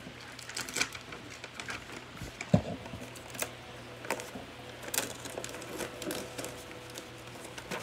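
Paper pictures rustling and crinkling with scattered clicks and taps as they are handled against a wall, and one dull thump about two and a half seconds in.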